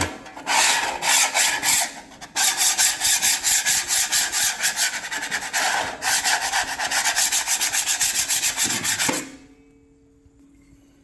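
Rapid back-and-forth scrubbing on the flat cooking plate of an electric griddle to clean it, about five strokes a second. The strokes pause briefly a little after two seconds and stop about nine seconds in, leaving a faint steady hum.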